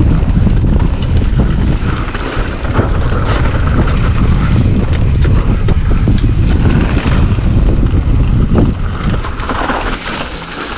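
Wind buffeting a GoPro's microphone while a mountain bike rides down a dirt trail, with the tyres rumbling over the ground and short rattles and knocks from the bike over bumps. It eases a little near the end.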